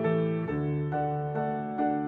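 Background piano music, with new notes and chords struck about every half second.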